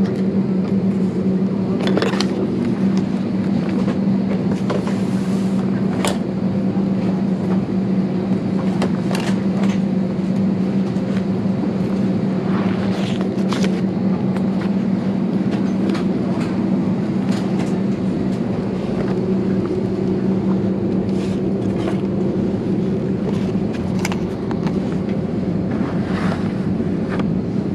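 Steady hum of an Airbus A320's cabin air system with the plane parked at the gate, one low tone running through it unchanged. Scattered short clicks and knocks from a bag and seat fittings being handled.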